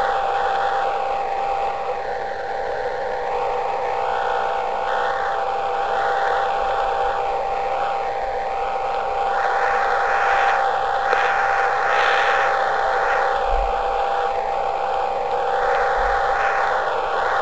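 Radio receiver hiss presented as Jupiter's radio emission: a band of noise that swells and fades every second or so. A steady whistle tone runs through it.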